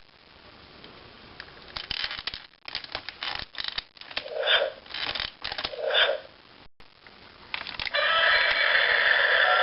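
Electronic Godzilla toy figure from the 1998 film being worked by hand: plastic clicking and scraping, then two short electronic calls from its speaker. About eight seconds in, a loud electronic Godzilla roar starts and holds.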